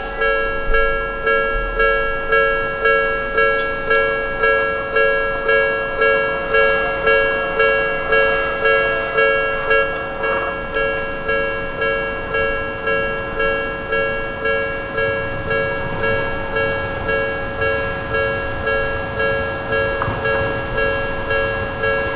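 Japanese level-crossing alarm bell ringing its repeated 'kan-kan' chime at about five strikes every four seconds, on two steady pitches.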